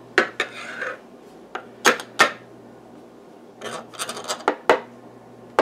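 Knife trimming excess pastry from the rim of a pie plate, the blade clicking and scraping against the plate's edge in scattered short strokes.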